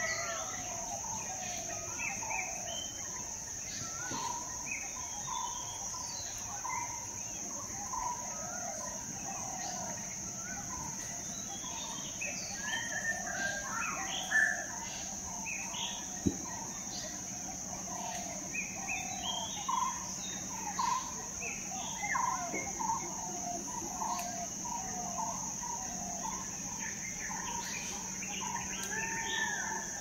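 Several birds calling and chirping over one another in short, quick phrases, over a continuous high-pitched insect buzz. One sharp click sounds a little past halfway.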